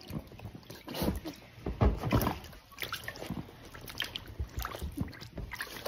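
Puppies wading in shallow water in a plastic paddling pool, their paws making irregular small splashes and sloshes, with water dripping and trickling.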